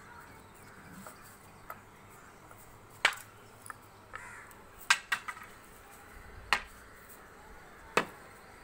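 A silambam stick knocking sharply on a concrete floor as it is swung and planted: about five short knocks at irregular intervals.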